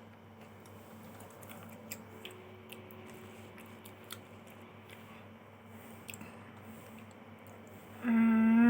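Mouth chewing a Superstar chocolate wafer bar with soft, scattered crunchy clicks over a steady low hum. Near the end a loud held vocal sound at one steady pitch comes in.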